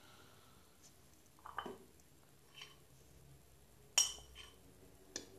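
A utensil clinking against a mixing bowl a few separate times, as when stirring a thick mixture; the loudest knock comes about four seconds in.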